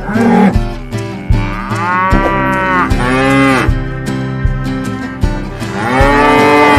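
Cattle mooing: three long moos, each rising then falling in pitch, the last running on past the end, over background guitar music with a steady beat.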